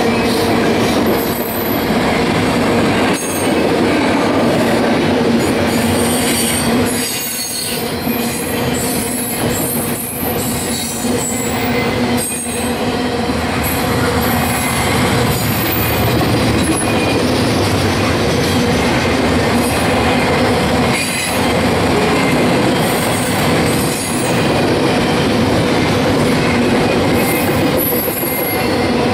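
Double-stack intermodal well cars rolling past close by: a steady rumble and rattle of steel wheels on rail, with brief high-pitched wheel squeals now and then and a few sharp clunks.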